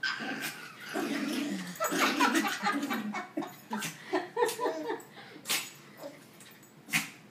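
Small fluffy dog growling and vocalizing as it play-fights, with a toddler laughing in between. Two short sharp sounds come in the second half.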